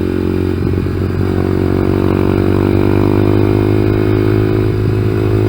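2014 Honda Grom's 125 cc single-cylinder four-stroke engine running on the track, its pitch wavering briefly about half a second in, then holding steady and edging slowly upward. The engine bogs when the throttle is opened: it runs poorly after an engine swap because the ECU has not been reset to relearn its mix of old and new sensors.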